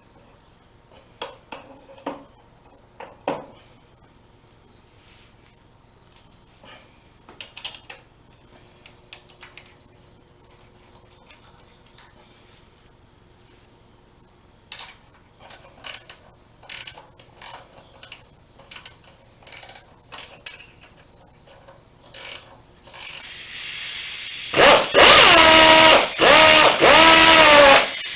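Scattered clicks and knocks of hand tools and parts being handled, over a steady high chirring of insects. Near the end a handheld power drill runs in three short, loud bursts, its motor pitch rising and falling, as bolts are driven during reassembly.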